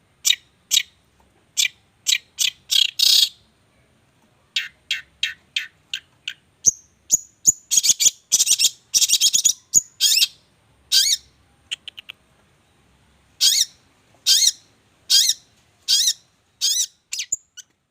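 A songbird singing loudly and continuously, in rapid sharp whistled notes broken by a few longer fast chattering runs: the full 'gacor' song of a competition songbird.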